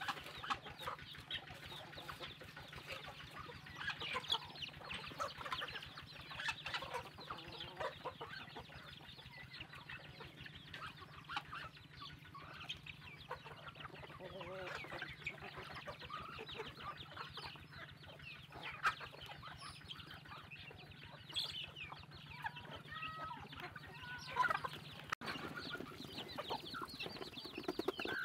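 A flock of chickens clucking continuously while they feed at a pan of grain, many short calls overlapping, with a faint steady low hum underneath.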